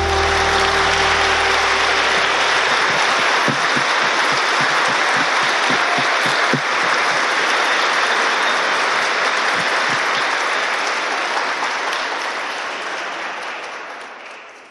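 Crowd applauding, with single claps standing out through the middle, fading out near the end.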